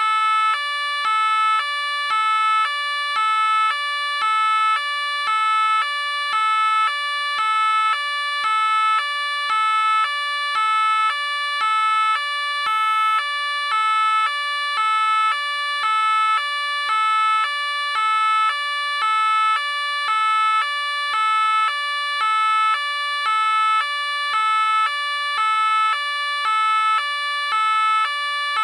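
French police car two-tone siren, switching back and forth between a high and a low tone about twice a second in a steady, unchanging rhythm.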